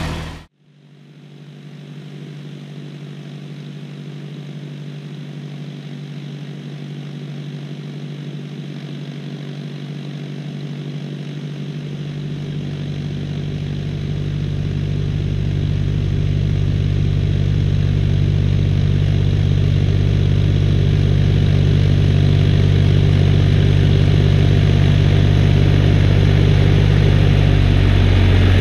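John Deere tractor's diesel engine running at a steady pitch while pulling a stubble plough. It grows steadily louder as the tractor approaches and is close by the end.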